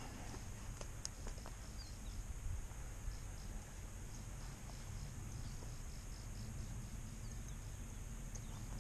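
Insects trilling steadily in the scrub, with a faint chirp repeating about three times a second through the middle, over a low rumble.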